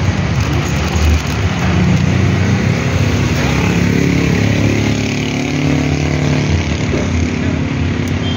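Steady motor vehicle engine noise, as from road traffic. Around the middle, one engine's pitch slides up and down.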